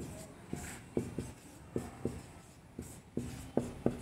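Marker pen writing on a whiteboard: an irregular string of short taps and brief squeaks as the tip strokes across the board.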